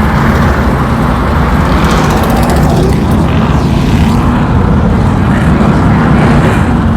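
A pack of modified stock cars' V8 engines running together around the track, a loud, steady engine din.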